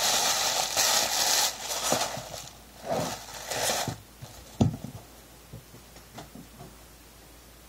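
White tissue paper rustling and crinkling as it is handled, dense for the first second and a half and then in patchy bursts, dying away after about four seconds. A single knock comes a little after four and a half seconds, followed by faint handling sounds.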